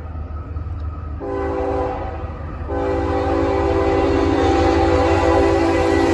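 Approaching CSX freight locomotive's air horn sounding over the low rumble of the train. It comes in short blasts at first, then from about three seconds in one long unbroken blast that grows louder as the train closes in. The railfan takes it for a stuck horn.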